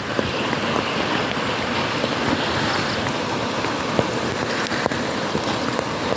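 Steady rain falling, an even hiss with a few sharper ticks of drops striking close by, about a second in and again near four and five seconds.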